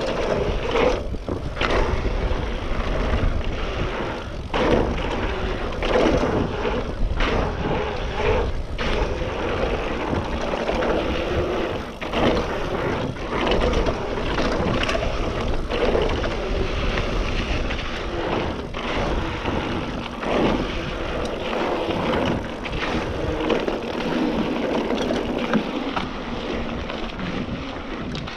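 2019 Trek Roscoe 8 27.5-plus mountain bike rolling fast down a dirt singletrack: wind on the microphone, the wide tyres rumbling over the dirt, and the bike rattling and knocking over bumps again and again.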